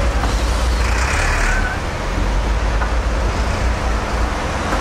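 Steady low rumble of city traffic, with a cordless drill briefly driving a screw into plywood about a second in.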